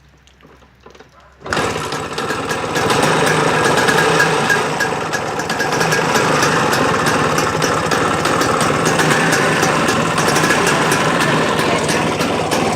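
1995 Vespa Exclusive scooter's two-stroke single-cylinder engine starting about a second and a half in, then running steadily, picking up a little just after it catches.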